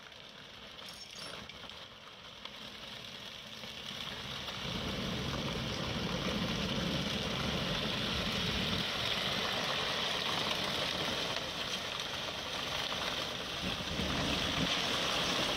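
Flatbed tow truck's engine working as it drags an overturned car on its side along the asphalt, with the car's body scraping on the road. The noise swells about five seconds in and then holds steady.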